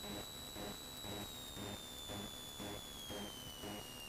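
Cessna 172 cabin sound on short final, heard through the intercom feed: a low engine and propeller drone pulsing about twice a second. Over it runs a high steady whine that starts to slide slowly down in pitch about a second in, as engine power comes back for the landing.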